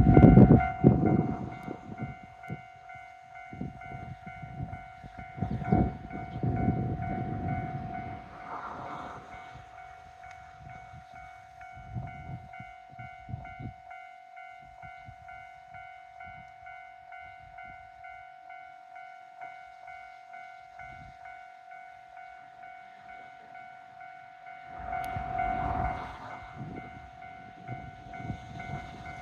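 Level crossing warning bell ringing steadily throughout. The Orange Shokudo tourist diesel train rumbles over the crossing during the first several seconds, and a shorter rumble comes back about 25 seconds in.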